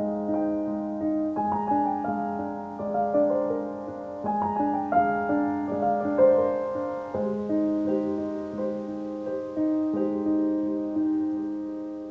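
Background piano music: a slow, gentle melody of single notes struck one after another and left to ring over held lower notes.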